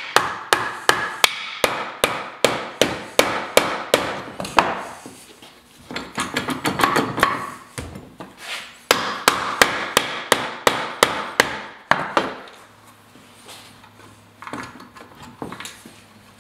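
Soft-faced mallet tapping repeatedly on the front of an early-1940s Ford synchromesh transmission case at the input shaft, sharp knocks about three a second. The knocking comes in two runs with a pause between, then gives way to quieter handling of the case near the end.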